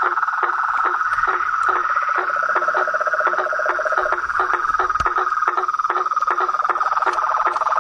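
Dense chorus of frogs trilling steadily, with short calls repeating evenly about three times a second. There is a single sharp click about five seconds in.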